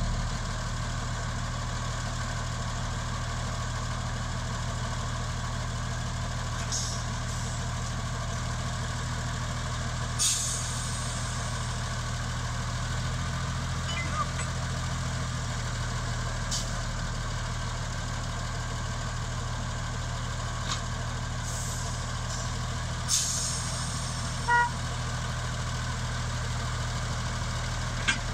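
Mk48 narrow-gauge diesel locomotive idling steadily while standing at the head of its train. Several short hisses and a brief high tone near the end break in over the engine note.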